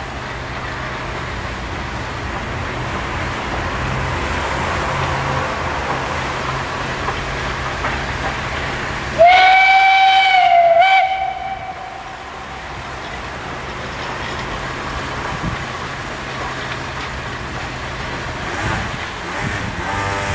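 Steam whistle of the SNCF 141 R 1126 steam locomotive, sounding one long single-note blast about nine seconds in, with a brief break just before it ends, over the steady running noise of the moving train.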